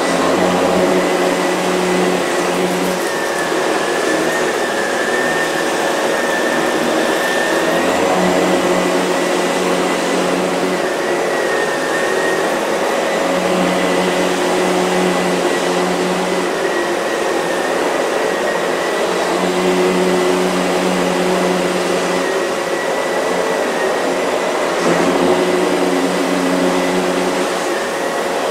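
Miele C3 canister vacuum running steadily with a high motor whine while vacuuming a dirty rug, its lower hum swelling and fading every few seconds as the floor head is pushed back and forth.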